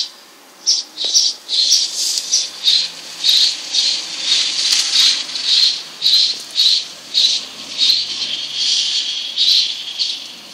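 Two-day-old newborn kittens mewing: a steady run of short, high, thin cries at about two a second.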